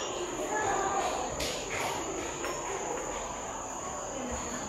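Steady high-pitched cricket trill over faint room noise, with a light clink of glassware being handled about a second and a half in.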